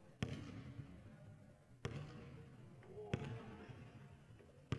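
Basketball dribbled slowly on a hardwood gym floor: four single bounces about a second and a half apart, each with a short echo in the hall.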